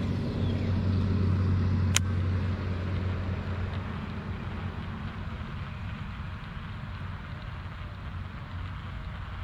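Road traffic: a passing vehicle's low rumble, loudest in the first few seconds, easing into a steadier, quieter traffic hum. A single sharp click comes about two seconds in.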